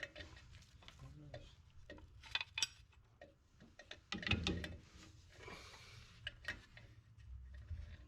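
Scattered metallic clicks and taps as drum brake hardware is handled: the shoe, its spring and the parking-brake pivot arm being worked into place by hand. The sharpest clicks come about two and a half seconds in and again after about four seconds.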